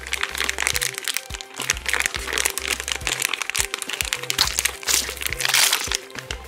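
Thin plastic slime pack crinkling and crackling as hands peel it open and pull it apart around the blue slime. Background music with a repeating bass line plays throughout.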